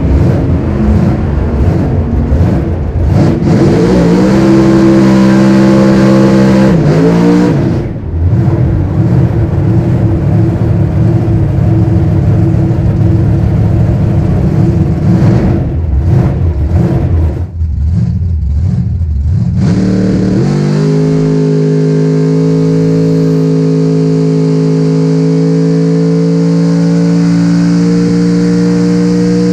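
Supercharged drag-racing engine of a Chevy 3100 pickup, heard from inside the cab: hard loud revving, a few seconds held at steady revs, then a long full-throttle run of about ten seconds, settling about twenty seconds in into a steady lower engine note that climbs slowly.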